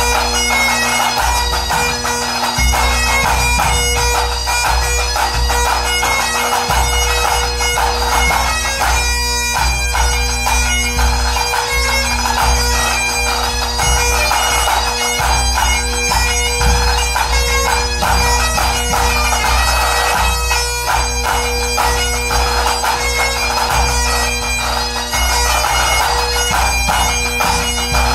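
Highland pipe band playing: Great Highland bagpipes carry a tune over steady drones, with snare drums and a bass drum keeping the beat.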